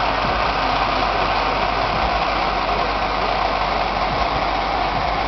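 Steady, even rushing noise from inside a vehicle stuck in traffic on a storm-flooded road.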